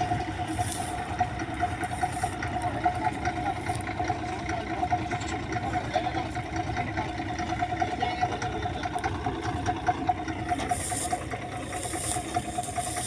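Wheat harvesting machine running steadily: a constant engine drone with a held mid-pitched hum over low rumble. Some hissing joins it near the end.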